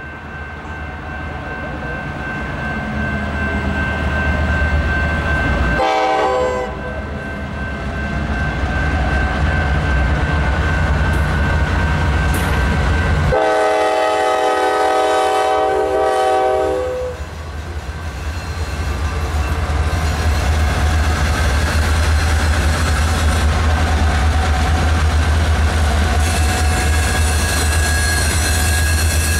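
Norfolk Southern diesel freight train, led by a GE Dash 9-40CW locomotive, approaching and passing close by with a deep engine rumble that builds as it nears. The air horn sounds twice: a short blast about six seconds in, then a longer one of about three and a half seconds from about thirteen seconds in. The lead locomotives then go by with engine noise and wheels clicking over the rails.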